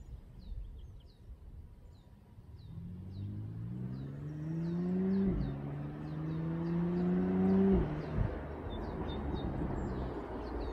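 BMW M2 Competition's twin-turbo inline-six, fitted with catless downpipes and a midpipe, accelerating hard: revs climb, drop sharply at an upshift halfway through, climb again, and drop off near the end. Birds chirp throughout.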